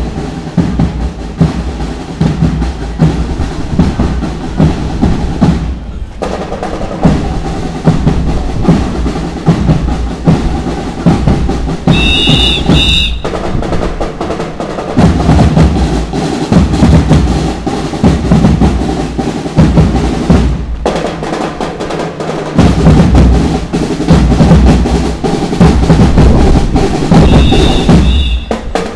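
A marching band's drum section is playing a parade cadence: snare rolls over steady bass drum beats. A short high whistle cuts through twice, about twelve seconds in and again near the end.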